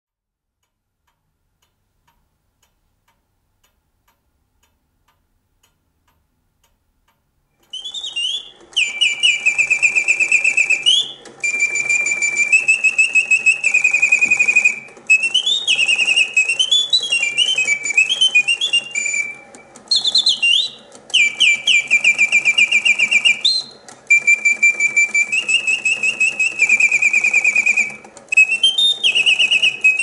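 Reuge singing bird cage automaton's bellows-driven whistle sings a mechanical birdsong, starting about eight seconds in. It goes in fast trills and rising and falling runs, in phrases of a few seconds with short pauses between them.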